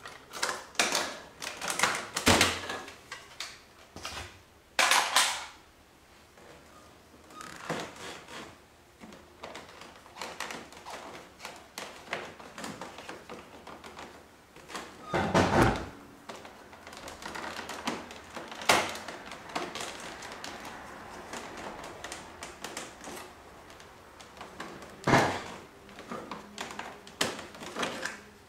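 Hard plastic fairing-pocket panels of a Honda Goldwing 1500 being handled and moved: irregular clicks, taps and knocks, with a few louder thunks.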